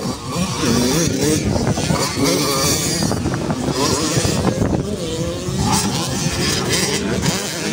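Several 85cc two-stroke motocross bikes revving hard and accelerating past on a dirt track, their engine pitch rising and falling over one another as they go by.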